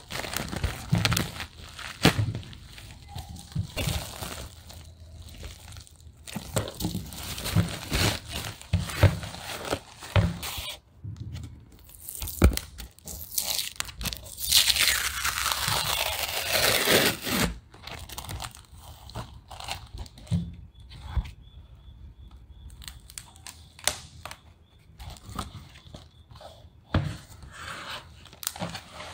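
Hands crinkling and tearing a plastic poly mailer, then handling and tearing open a corrugated cardboard package. There are rustles and clicks throughout, one long loud rip about halfway through, and quieter rubbing of cardboard near the end.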